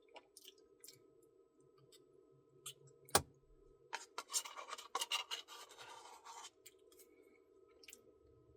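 Close-up eating and handling sounds of a Dairy Queen Blizzard: scattered small clicks, a sharper click about three seconds in, and a stretch of scraping and rustling from about four to six and a half seconds.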